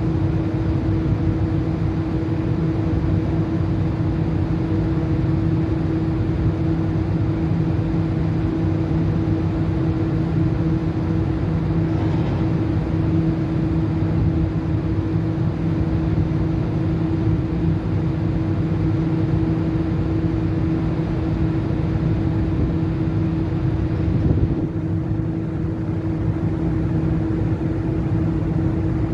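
Steady low drone of a large ship's engines and machinery, with a constant hum running through it. It eases a little about 25 seconds in.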